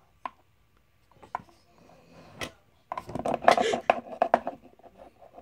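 Plastic toy figurines handled and tapped on a tabletop: three sharp clicks about a second apart, then a busier patch of clicking and rustling handling noise about three seconds in.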